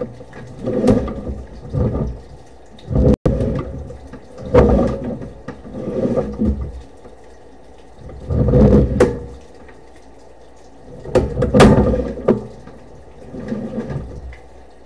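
Sewer inspection camera's push cable being hauled back out of the line, with rubbing and knocking that come in irregular bursts every second or two, each pull of the cable a burst, and a few sharp clicks.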